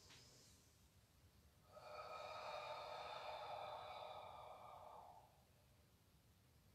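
A woman's held guttural sound from the back of the throat, somewhat like gargling, starting about two seconds in and lasting about three and a half seconds: the Do-In healing sound that works the Earth energy.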